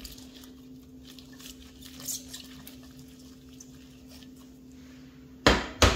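Kitchen handling of dough and a glass bowl: faint rustles and ticks over a steady low hum, then two loud knocks close together near the end.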